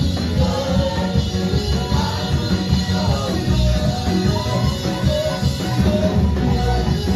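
Worship music played loud: singers performing a song in Samoan over a band with a strong bass and drum beat.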